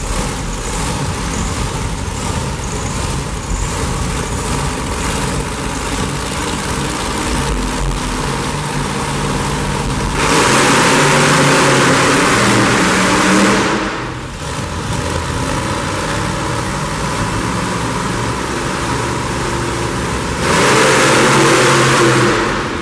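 Monster truck engines running, then rising to loud full-throttle revs twice, about ten seconds in and again near the end, as the trucks launch over crushed-car ramps.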